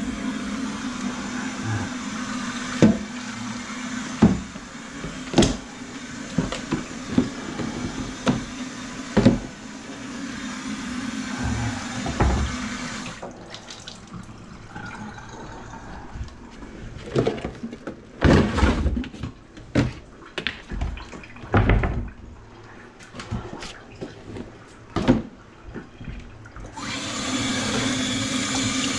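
Kitchen faucet running into a stainless steel sink, with scattered knocks. The water stops about halfway through, leaving a run of clunks and knocks. It comes back on near the end, running over gloved hands being rinsed.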